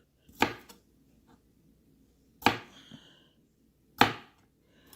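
Santoku knife chopping down onto a cutting board in three separate, sharp knocks spaced a second and a half to two seconds apart; the second knock rings briefly.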